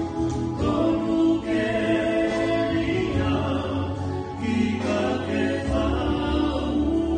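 Two men and a woman singing a Tongan Christian song in harmony into microphones, holding long notes.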